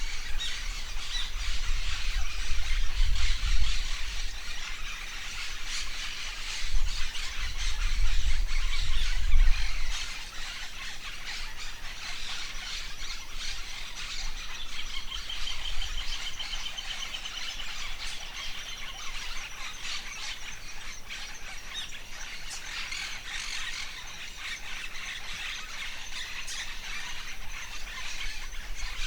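Forest birds chirping and calling together, with wind rumbling on the microphone for the first ten seconds or so. About halfway through, one bird gives a rapid, even trill lasting a couple of seconds.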